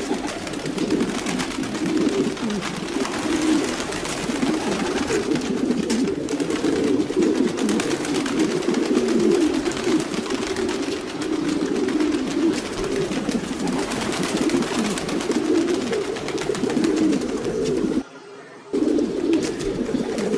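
Many domestic pigeons cooing at once, a steady overlapping throaty coo with no pauses. The sound drops out for under a second about 18 seconds in.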